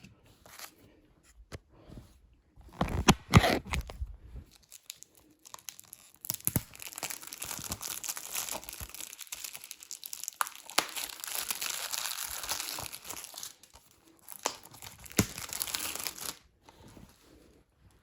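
Plastic shrink-wrap being torn open and crinkled off a 4K Blu-ray case, with a loud rip about three seconds in, a long stretch of crackling plastic and a few sharp clicks from the case being handled.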